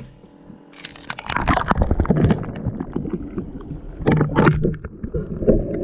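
Water sloshing and gurgling against a GoPro as it is lowered down an ice-fishing hole and goes under, with crackling knocks of the housing against the hole. Near the end it turns muffled, as heard from under water.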